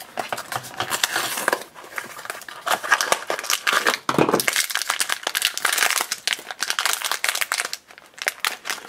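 Foil blind-bag packet crinkling and crackling as it is handled and unwrapped by hand, with dense small clicks throughout.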